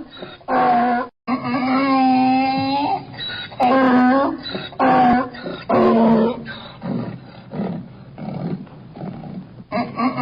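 An animal calling repeatedly in pitched cries, some short and some drawn out, fading somewhat after about six seconds.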